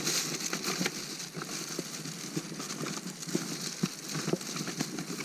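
Steady wind hiss on the microphone, with scattered light clicks and knocks as ice-fishing tip-ups are handled.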